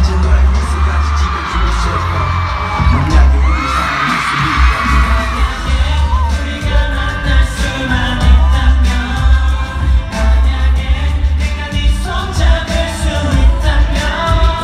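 A male singer singing a pop song into a microphone over backing music, played loud through a concert sound system, with heavy bass.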